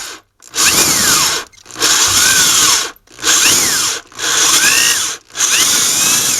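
Power drill boring a 1/2-inch hole into a poplar block in five short bursts of about a second each. In each burst the motor whine rises and falls as the trigger is squeezed and let off. The bit is one the user says looks dull.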